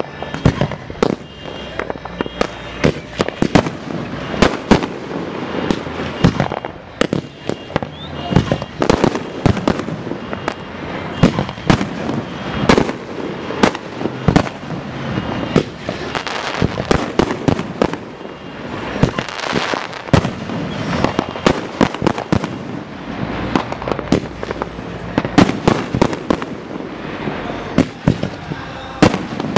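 Aerial firework shells bursting in a dense, unbroken barrage: sharp bangs several times a second over a continuous din.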